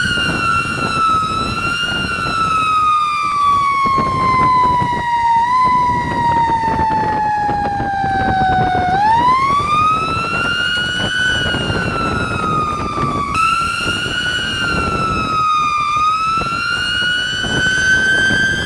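Fire truck's air siren wailing, its single pitch sliding slowly down for about nine seconds, then climbing back up, dipping and rising again near the end.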